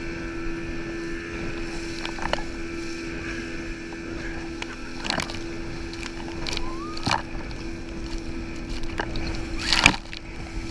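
Towing speedboat's engine humming steadily under the rush of water as an inflatable banana boat planes over choppy sea, with four sharp splashes of spray slapping against the riders and camera, the loudest near the end.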